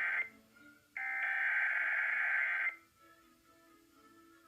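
Emergency Alert System SAME header: a harsh, buzzing digital data burst of two rapidly alternating tones, running about two seconds from about a second in, with the end of a previous burst cutting off just at the start.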